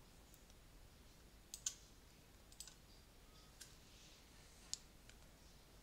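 Near silence broken by four faint, sharp computer mouse clicks about a second apart.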